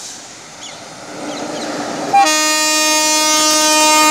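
An electric goods locomotive approaching: the rumble of the train grows louder over the first two seconds, then the locomotive's horn sounds a long, steady blast, starting about two seconds in and still going at the end.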